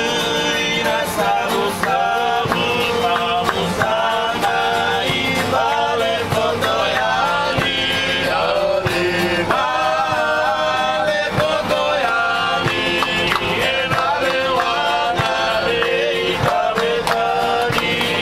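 Live music: men singing a melody over strummed acoustic guitar.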